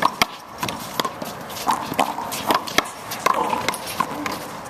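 A handball rally on a concrete court: a rapid, irregular series of sharp smacks as the rubber ball is struck by hand and slaps off the concrete wall and floor, with players' footsteps scuffing between hits.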